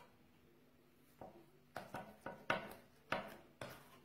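Faint, sharp knocks of a knife or serving utensil against the baking dish as the baked potato gattò is cut, about seven of them, roughly every half second, starting about a second in.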